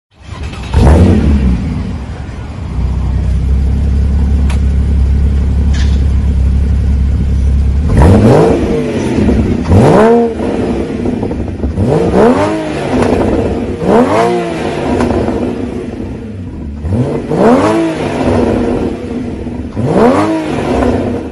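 Porsche Boxster 981 3.4-litre flat-six through a Topspeed Performance titanium exhaust. It blips up about a second in and settles to a steady, deep idle. From about halfway through it is revved about six times, roughly two seconds apart, each rev rising sharply and falling back.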